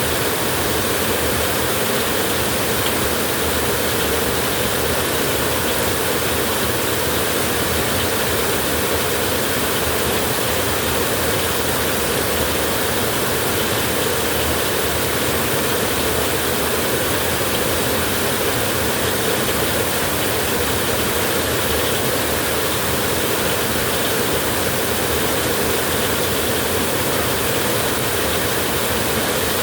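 Light drizzle: a steady, even hiss of rain that never changes, with no thunder heard.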